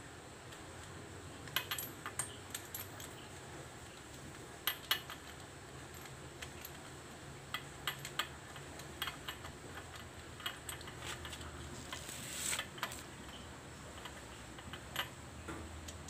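Scattered light metallic clicks and clinks of hand tools and small metal parts being handled at a motorcycle's exposed magneto side, with a faint steady low hum underneath and a short scrape about twelve seconds in.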